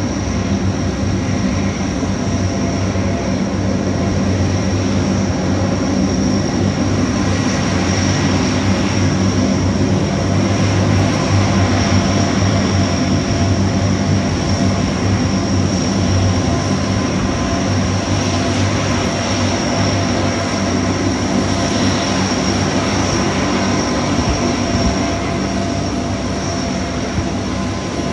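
Two P-3K2 Orion turboprops taxiing, their four-engine Allison T56 turboprops running at ground idle: a steady low drone of the propellers with a high turbine whine over it.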